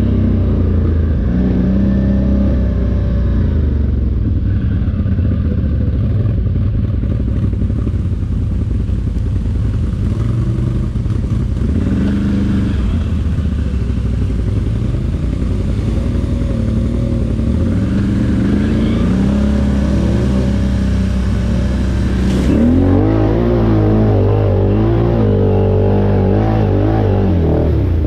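ATV engine running under way, its pitch rising and falling with the throttle, wavering rapidly up and down in the last few seconds.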